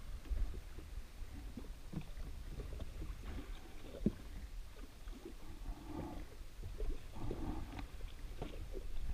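Water lapping against the hull of a drifting jet ski under a steady low rumble of wind on the microphone, with scattered small clicks and knocks from a fishing reel being wound, one sharper knock about four seconds in.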